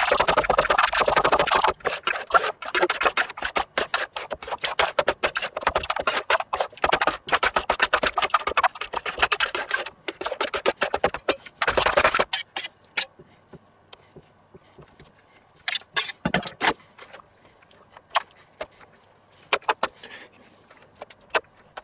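A metal spatula scraping rapidly back and forth across a stainless steel pan chilled on crushed ice, working an ice cream base as it begins to freeze. The scraping is dense for about the first half, then thins to occasional scrapes and taps.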